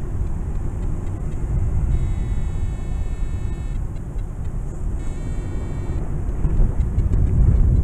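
Steady wind buffeting the camera microphone in flight under a paraglider, a low rumbling rush of air.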